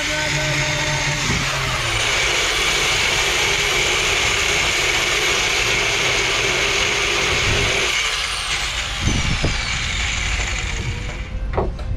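Angle grinder cutting through metal, a loud steady grinding hiss, then switched off about eight seconds in, its whine falling in pitch as the disc winds down, with a few knocks.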